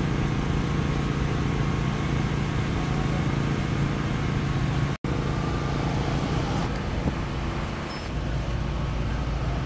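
Steady low mechanical hum over a wash of outdoor street noise. The sound cuts out for an instant about halfway through, and a deeper rumble comes in near the end.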